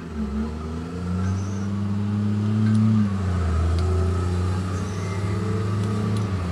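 A motor engine running with a low drone whose pitch shifts up and down a few times.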